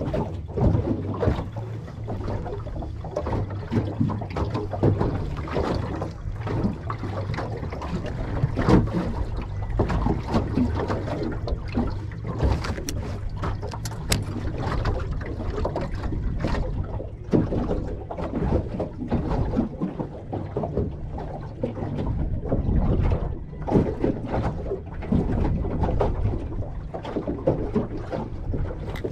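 Wind buffeting the microphone, with water lapping and slapping against the hull of a small fishing boat in irregular gusts and splashes.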